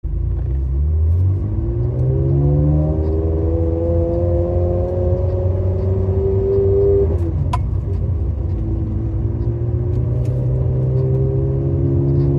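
Ferrari 360 Modena's V8 engine pulling under acceleration, its pitch rising steadily for several seconds, then dropping at a gear change about seven seconds in, with a single sharp click just after; it then runs at a steady pitch.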